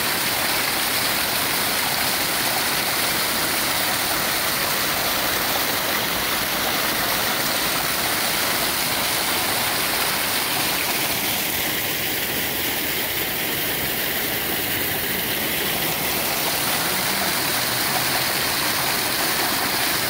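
Small waterfall pouring down a rock face and splashing onto the stones below: a steady, loud rush of falling water heard close up.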